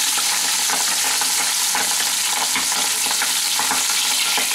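Pabda fish pieces sizzling steadily as they shallow-fry in hot mustard oil in a kadai, with small crackles of spitting oil and light scrapes of a metal spatula pushing and turning the fish.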